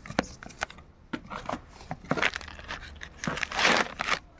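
Packaging rustling and crinkling with light clicks as the parts of a new cylinder-piston kit are unpacked by hand, with a louder rustle about three and a half seconds in.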